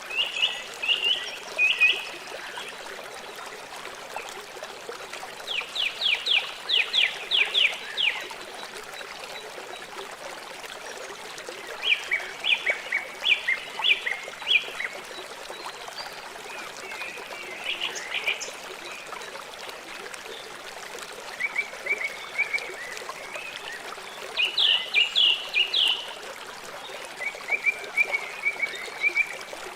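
River water flowing steadily. Over it come repeated animal calls, each a quick series of short high notes, in about seven bouts.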